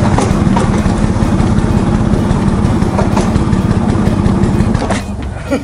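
A motor scooter's small engine idling with a fast, even pulse, dropping in level near the end.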